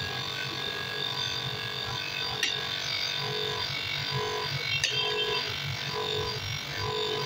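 Motor-driven grinding wheel running against the steel outer race of an old ball bearing, grinding it clean for reuse: a steady grinding that pulses about once a second, with two sharp ticks.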